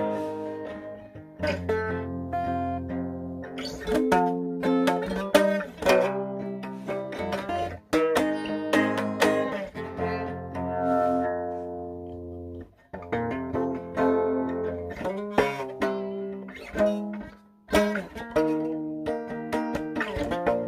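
Guitar playing a blues instrumental: plucked notes and chords ringing over sustained bass notes.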